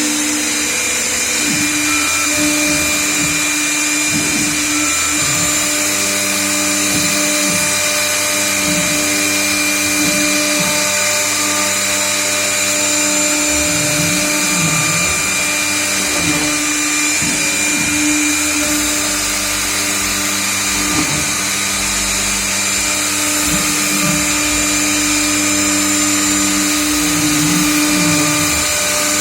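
CNC router cutting letters: the spindle runs with a steady high whine, while lower motor tones sweep up and down in pitch again and again as the machine moves along the cut.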